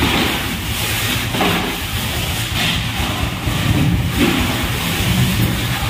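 Whole fish being tossed one at a time into plastic crates, a short wet slap about every second and a half, over a steady low rumble and hiss.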